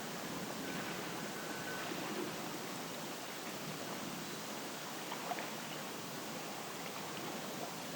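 Early-morning outdoor ambience: a steady wash of hiss-like noise, with a brief high, even whistle note about a second in and a few faint ticks later on.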